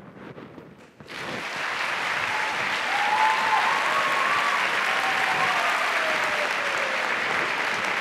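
Audience applauding, starting suddenly about a second in and holding steady, with a faint drawn-out tone sliding slowly down in pitch over it.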